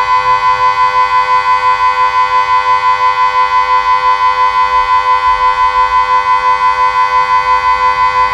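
Delta 6 civil-defence siren sounding the steady-tone "Warnung" (warning) signal: one constant pitch, pulsing about four times a second.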